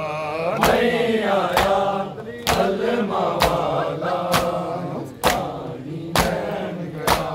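Men beating their chests in unison during matam, each sharp slap landing together just over once a second. A crowd of male voices chants a drawn-out noha line beneath the slaps.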